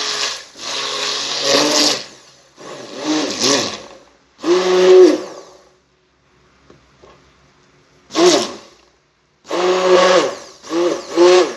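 Electric kitchen mixer whirring through a thin chickpea-flour batter, switched on in repeated short bursts with the motor pitch rising and falling in each, and a longer pause about halfway through.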